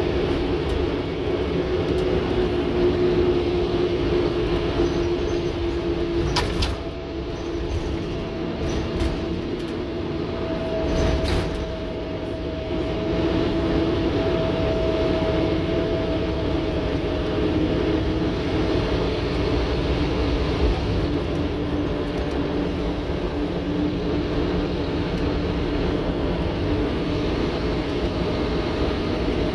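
On board a Scania N230UD OmniCity bus under way: its engine and transmission run steadily with a whine that drifts in pitch as road speed changes. It eases briefly about a third of the way in, and a couple of short rattles come through.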